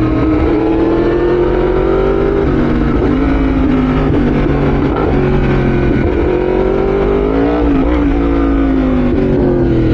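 Yamaha R1's inline-four engine running at cruising speed, its pitch rising and sagging gently with small throttle changes.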